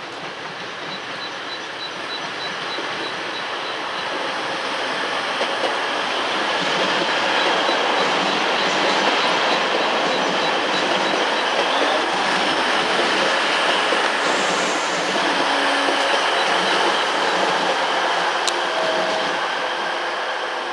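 A train running through the station, growing steadily louder for about eight seconds, holding, then easing off near the end.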